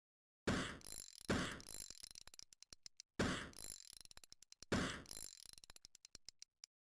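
A small hard object dropped onto a hard surface and bouncing to rest, its bounces coming faster and quieter until they stop; this happens twice in the same way.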